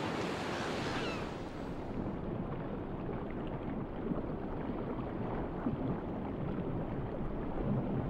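Sea water at the surface with a steady wash, then a muffled underwater ambience as the high hiss drops away about two seconds in.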